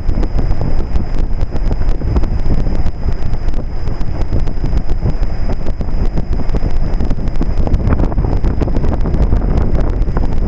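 Heavy wind rumble buffeting the microphone over a 1998 Trane XL1800 heat pump's outdoor condensing unit running in cool mode, with a faint steady high whine throughout.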